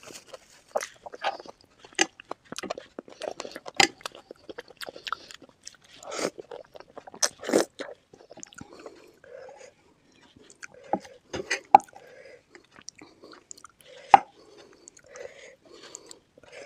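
Close-miked eating of chicken feet curry with Maggi noodles: wet chewing and biting, with many sharp crunchy clicks, the loudest late on. In the second half there are softer, rounded mouth sounds between the crunches.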